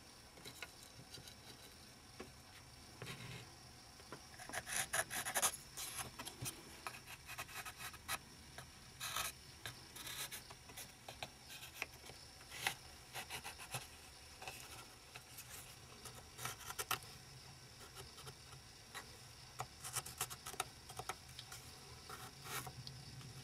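Pencil scratching on lime wood as it is run round the edge of a pattern to mark out a figure-of-eight chain, in short irregular strokes with the busiest spell about five seconds in.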